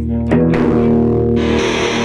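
Distorted electric guitar played through fuzz pedals into a Fender Deluxe Reverb amp: a held chord, restruck about a third of a second in, that turns thicker and buzzier with fizzy hiss about a second and a half in.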